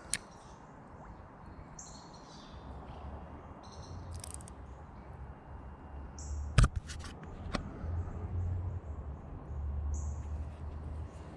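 Birds chirping in short calls, over a low rumble, with a sharp knock about six and a half seconds in and a few fainter clicks after it.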